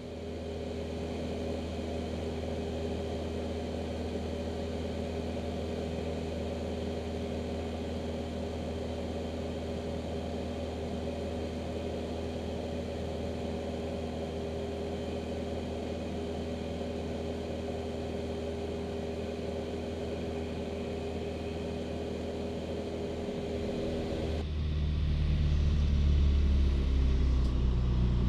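Single-engine piston airplane in flight, its engine and propeller droning steadily as heard on board. About 24 seconds in the sound turns abruptly louder and deeper.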